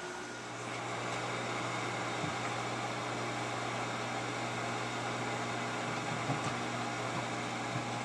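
Microwave oven running through a cooking cycle: a steady low hum with the even whoosh of its fan.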